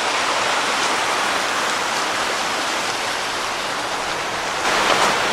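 Steady rushing of flowing water from a stream fed by a waterfall, getting a little louder near the end.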